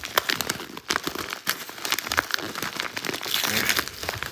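Yellow paper mailer envelope being pulled open and handled by hand: a dense, irregular stream of paper crinkling and crackling.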